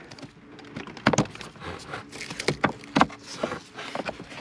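Old cabin air filter being worked out of its plastic housing behind a Toyota RAV4's glove box: a run of irregular plastic clicks and scraping rustles.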